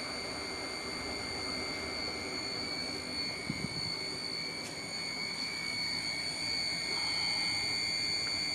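Electric honey extractor running a programmed cycle, spinning the combs: a steady motor hum with a high whine over it, and a couple of light clicks midway.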